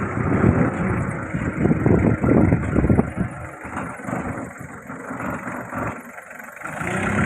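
Motor-driven machinery running, its level rising and falling, with a dip about six seconds in.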